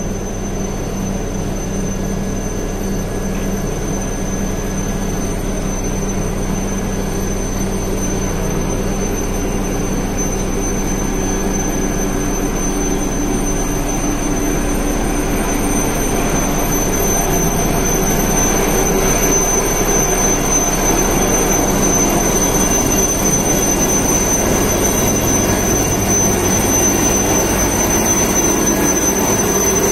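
Helicopter turbine engines running on the apron: a steady high whine over a low rumble, growing louder from about halfway through.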